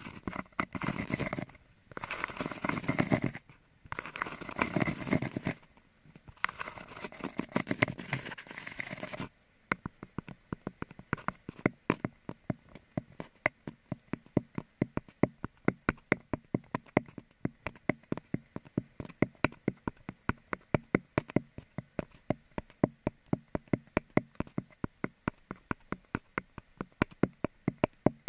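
ASMR ear-cleaning sounds close to the microphone: spells of scratchy rubbing, then from about nine seconds in, quick light taps, about three or four a second.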